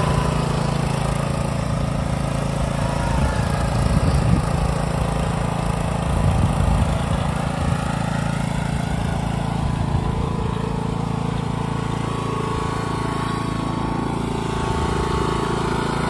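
Lawn mower engine running steadily, with small swells in loudness a few seconds in.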